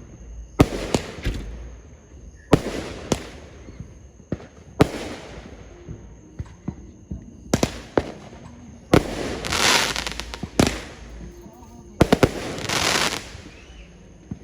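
Fireworks going off: a series of sharp bangs every second or two, each trailing off, with two longer stretches of dense crackling, about nine seconds in and again about twelve seconds in.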